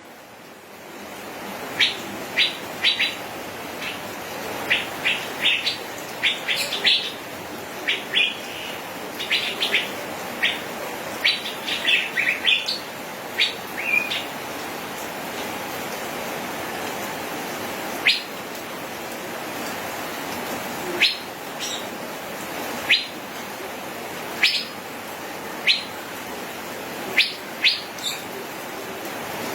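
Male Asian fairy-bluebird calling: short, sharp whistled notes, coming in quick runs for the first half and then singly every second or two, over a steady hiss.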